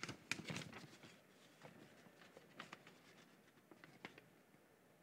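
Near silence: faint room tone with a few scattered soft clicks and taps.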